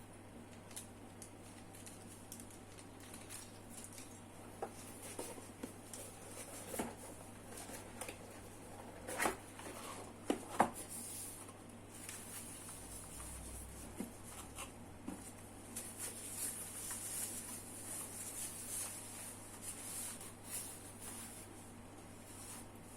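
Handling noises from a mechanical keyboard being unboxed: scattered light clicks and taps, a few louder ones about nine to eleven seconds in, then a faint rustle.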